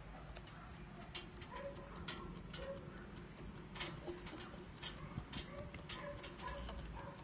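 A Howard Miller mantel clock's Kieninger mechanical movement ticking, with quick short ticks about four times a second.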